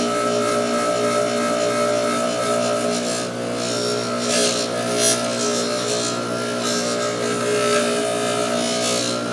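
Motor-driven grey 600-grit nylon fibre (Scotch-Brite-type) polishing wheel spinning with a steady hum, while steel pliers are pressed against it, giving hissy rushes of abrasion, the strongest about three to five seconds in.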